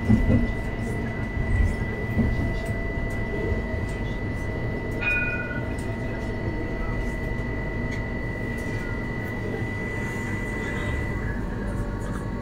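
Edinburgh tram (CAF Urbos) running along street track, heard from the driver's cab: a steady rumble of wheels and drive with a thin high whine that stops near the end. A few knocks come in the first couple of seconds.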